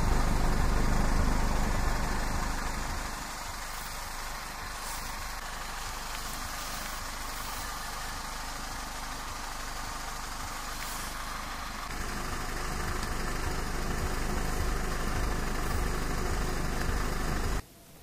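Wind buffeting the microphone: a low rumble under a steady hiss, louder for the first couple of seconds, easing, then building again about twelve seconds in.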